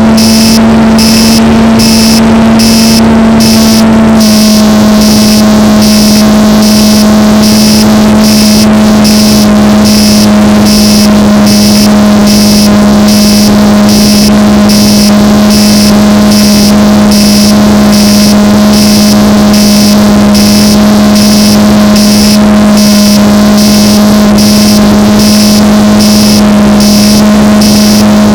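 RC plane's motor and propeller heard from the onboard camera: a loud, steady drone at cruise throttle that drops slightly in pitch about four seconds in, with a hiss that pulses about twice a second.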